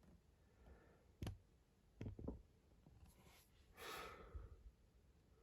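Near silence, broken by a few faint clicks and a soft breath about four seconds in.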